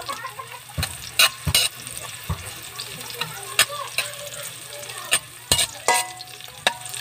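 Metal spatula scraping and knocking against a metal pan about ten times as chopped garlic and onion sizzle in oil, being sautéed until the garlic browns.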